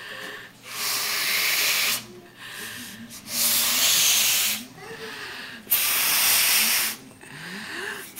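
Air blown hard through the nose into a balloon to inflate it: three long rushing exhalations, each over a second, with short pauses for breath between them.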